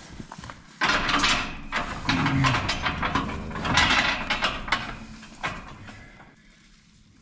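Steel livestock chute and gates clattering and banging as a cow is loaded into a maternity chute and the gate is worked, with a burst of knocks from about one second in that dies away after about five seconds.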